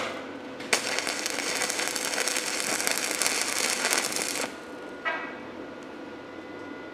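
Stick (manual arc) welding a tack on steel square tubing: the arc sizzles and crackles steadily for about four seconds, starting about a second in, then cuts off abruptly.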